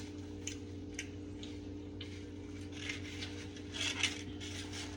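A person chewing food, with a few light clicks and soft wet mouth sounds, over a steady low hum.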